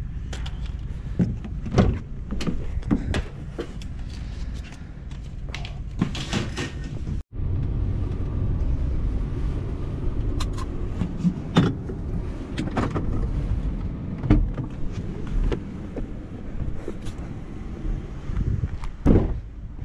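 Light clicks and clatter of thin aluminum window screens being handled, then, after a sudden cut, the steady low rumble of a Ram van driving, with scattered knocks and rattles. Near the end a loud knock as the van's door is opened.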